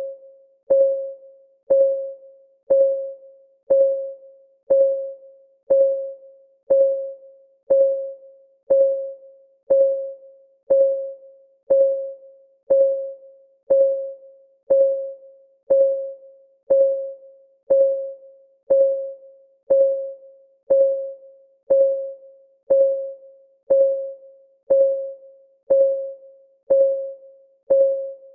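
Clock-ticking sound effect of a countdown timer: a short, pitched tick about once a second, each one ringing briefly and fading before the next.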